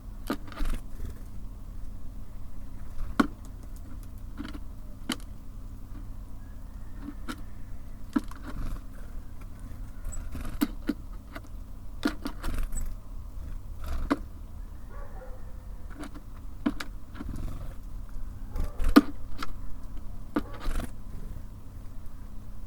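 Irregular sharp taps and clicks of small birds landing and pecking at a feeder, over a steady low hum of city traffic.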